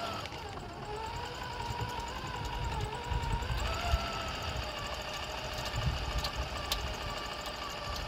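Small electric RC crawler's motor and gears whining as it drives, the whine stepping up in pitch about halfway through as it speeds up, over an uneven rumble from the towed camera trailer bumping along the ground.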